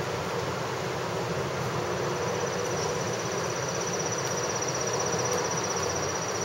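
Windy downpour: steady rain falling on wet pavement and parked cars.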